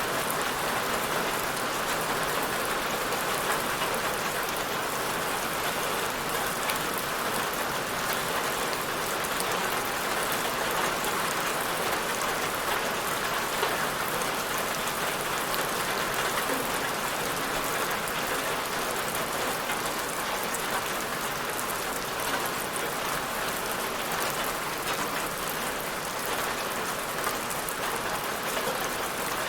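Steady, even rain falling, with many fine drop ticks on a hard surface and no change in strength.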